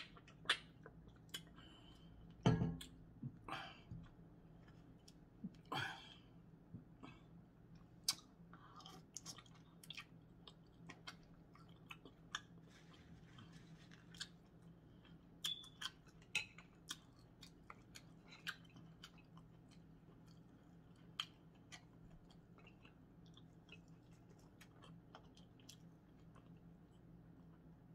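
Close-up eating sounds of a person chewing seafood boil: soft chewing broken by many short, sharp mouth clicks throughout.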